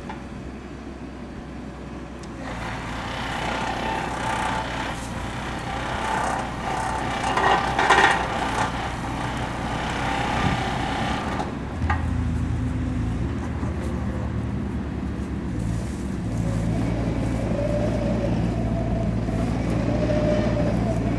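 Excavator engine running under load with hydraulic whine as its pressing head pushes a wooden post down into the soil. The louder, busier strain stops about halfway through, and the engine settles into a steadier run with a wavering whine.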